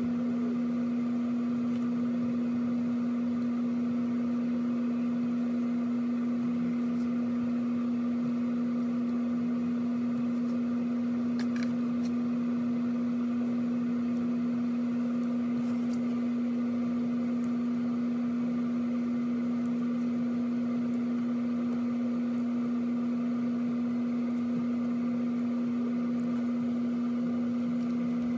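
A steady electrical hum at one low pitch, with fainter higher tones and a light hiss, unchanging throughout.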